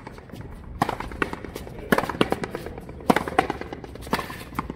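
Rally in racket frontón: a ball struck by tennis rackets and rebounding off the court's front wall, a quick string of about eight sharp cracks, each ringing briefly off the walls.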